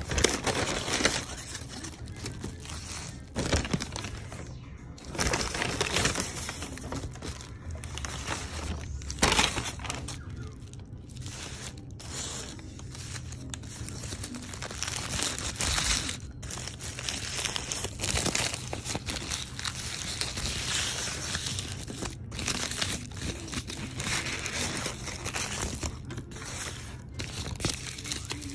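Paper takeout bag and foil-lined sandwich wrapper crinkling and rustling, with irregular sharp crackles, as a roast beef sandwich is taken out by hand and unwrapped.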